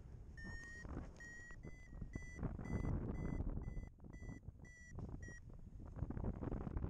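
Paragliding variometer giving its climb tone: a run of about a dozen short beeps, two to three a second, rising slightly in pitch at first, which stop about five and a half seconds in; the tone means the glider is in rising air. Under it, wind rushes steadily on the microphone.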